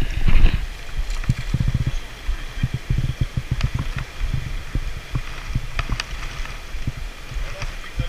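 Steady rush of river water over a shallow riffle, under irregular low thumps and rumble from the worn camera being jostled and wind on its microphone, with a few sharp clicks about three and a half and six seconds in.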